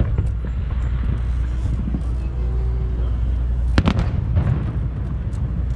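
Fireworks going off: a few sharp bangs, the loudest a close pair nearly four seconds in, over a steady low rumble.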